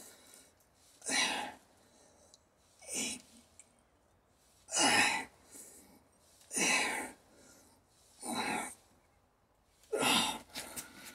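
A man exhaling hard, six sharp breaths about two seconds apart, one with each rep as he strains under heavy dumbbells.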